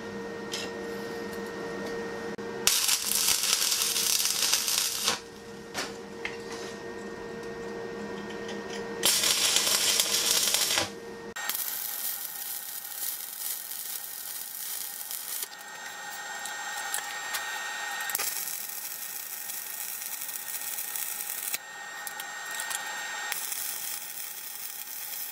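Stick (MMA) arc welding on steel: two loud bursts of arc crackle in the first half, then a long steady crackle of a weld bead being run from about halfway on.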